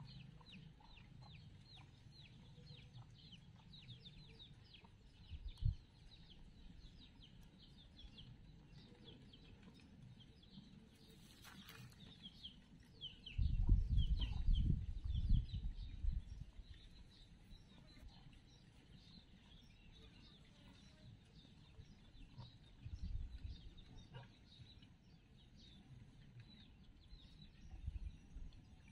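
Birds chirping faintly in many short, quick falling notes. Low rumbles of wind buffeting the microphone come through, loudest for a couple of seconds about halfway.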